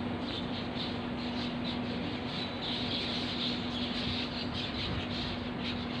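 A flock of birds calling, with many short, high chirps and squawks overlapping throughout and a louder cluster of calls around the middle. A steady low hum runs underneath.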